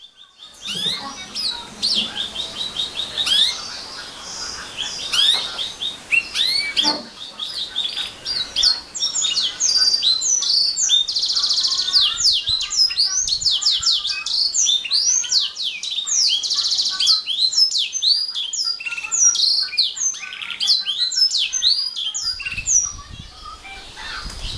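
Domestic canary singing a long, rapid song of chirps and whistles, broken by buzzy trills twice in the middle.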